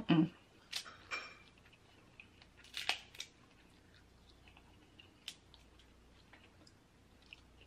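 Snow crab leg shells cracking and snapping by hand, with sharp cracks right at the start, near one second and around three seconds in, then scattered faint clicks and soft chewing of crab meat.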